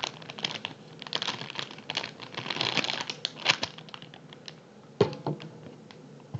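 Plastic packaging bag crinkling as a squishy toy is squeezed and handled inside it: a quick run of small crackles, densest in the first four seconds, with a sharper, louder crackle about five seconds in.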